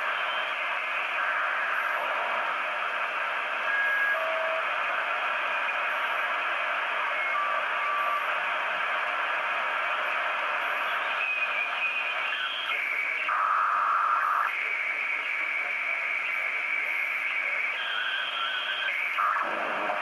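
ICOM IC-PCR1000 shortwave receiver in lower sideband with a narrow 2.8 kHz filter, putting out a steady band-limited hiss of static as it is tuned down the 40 m amateur band. Signals passing through the passband are heard as steady whistle tones, each at a different pitch, coming and going.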